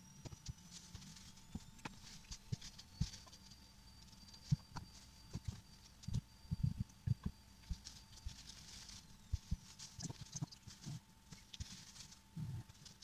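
Irregular light taps and knocks as chopped banana-peel pieces drop into a frying pan and onto a tabletop, with a faint steady tone underneath.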